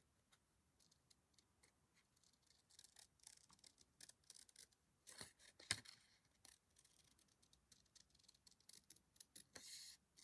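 Faint, scattered snips of small scissors cutting thin origami paper around a curve, with the loudest snip just before six seconds in and a brief paper rustle near the end.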